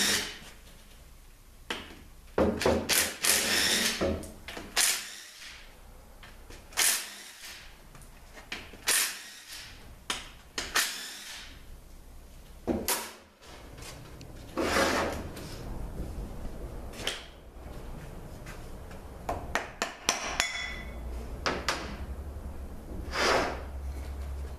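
A 13 mm socket wrench loosening and spinning out the extension-housing bolts on a 6L50 six-speed automatic transmission, heard as a series of short rattling bursts a few seconds apart. Between the bursts come metal clinks of bolts and tools, with one brief ringing clink about twenty seconds in.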